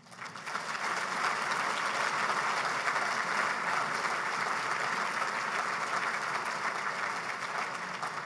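Audience applauding, with many hands clapping. It swells up within the first second, holds steady, and begins to ease off near the end.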